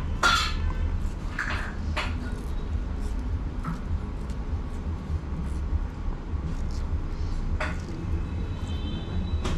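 A few short, scratchy snaps of a cotton thread pulling out chin hairs during facial threading, over a steady low room rumble. A brief high tone sounds near the end.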